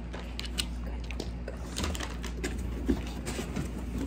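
A scatter of light clicks and taps, a few each second, over a low steady hum.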